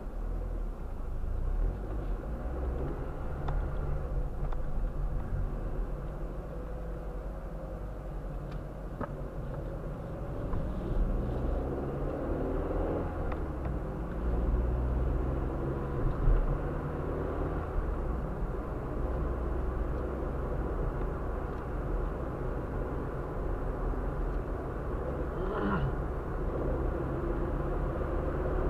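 Car driving along village streets, heard from inside the car: a steady low engine and road rumble that grows louder about a second in as the car moves off, with the engine note rising and falling.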